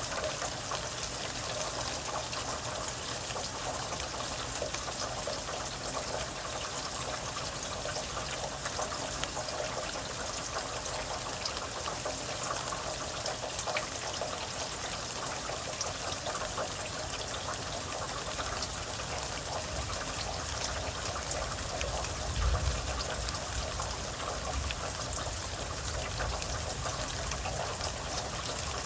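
Steady rain falling, with a constant patter of drops and trickling, running water. A brief low rumble comes about three-quarters of the way through.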